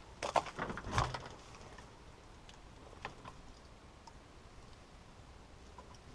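A few sharp knocks and scuffs in the first second, the loudest a dull thump about a second in, then only faint occasional clicks.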